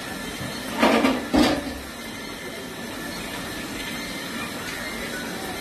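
Two short scraping strokes of a knife working a trout on a wooden chopping block, close together about a second in, over a steady background hiss.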